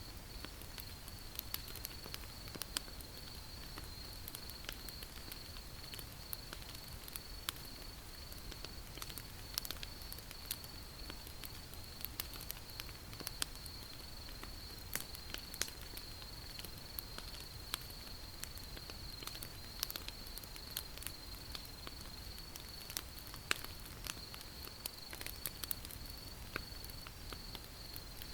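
Wood fire crackling, with frequent irregular sharp pops and snaps over a soft low rumble. A steady high-pitched insect trill runs underneath.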